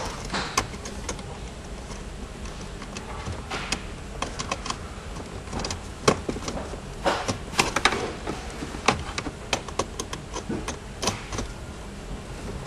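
Hand tool tightening the nuts on a 12-volt copper bus bar and breaker junction: irregular metal clicks and ticks, over a steady low hum.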